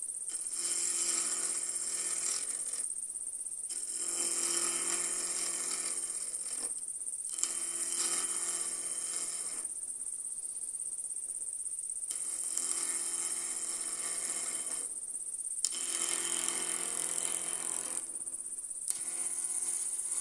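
Wood lathe running with a steady high whine and low hum while a carbide turning tool cuts a Bois d'Arc (Osage orange) duck-call barrel in repeated passes. Each pass is a few seconds of scraping cut, and in the short breaks between passes only the running lathe is heard.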